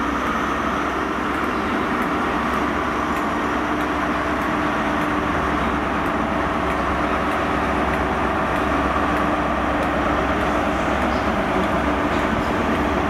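GWR High Speed Train with a Class 43 diesel power car moving off, its engine giving a steady drone over a continuous rumble that swells slightly as the coaches pass.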